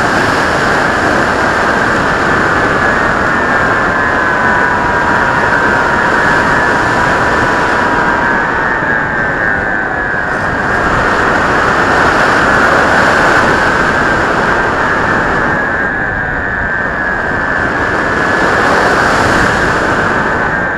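Skywalker RC plane's electric motor and propeller running in flight, heard close with heavy wind rush over the airframe. A steady drone with whining tones that slowly drift up and down in pitch as the throttle and airspeed change.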